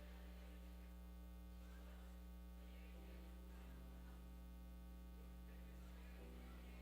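Steady electrical mains hum, otherwise near silence, with faint murmuring and faint held tones that change pitch twice.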